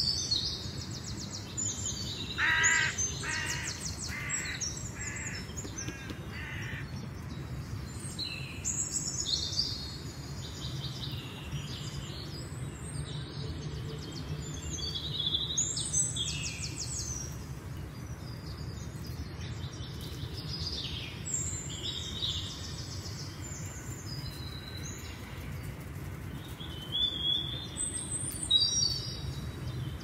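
Several woodland birds singing and calling, with high twittering phrases throughout. A few seconds in, a lower call repeats about five times, roughly once a second. A steady low hum runs underneath.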